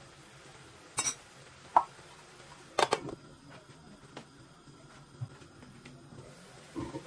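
An aluminium lid clatters down onto a nonstick frying pan about three seconds in. Before it come a knock and a short ringing metal clink, and near the end there is another rattle as the lid is handled again.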